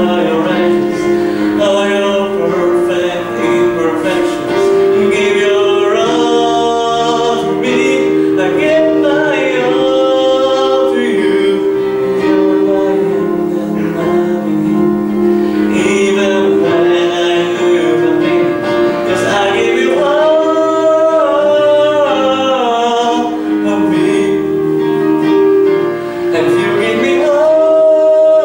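A young man sings a solo song to a keyboard accompaniment. The keyboard holds steady chords underneath, and the sung melody rises and falls above them.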